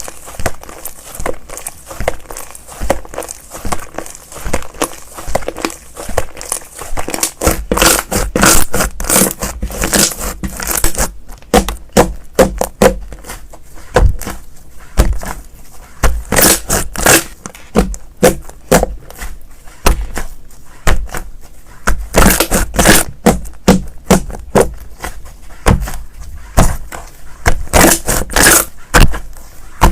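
Slime being played with, giving a dense run of irregular clicks and crackles.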